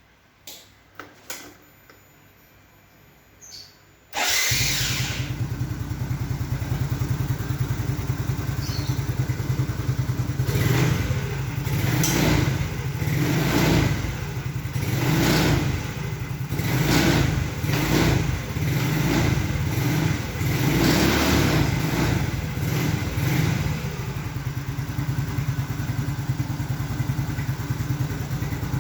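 A few faint clicks, then about four seconds in the Yamaha Mio J scooter's single-cylinder engine starts and runs. From about ten seconds in it is revved in a series of short blips, then settles back to a steady idle, running on its newly fitted cylinder block.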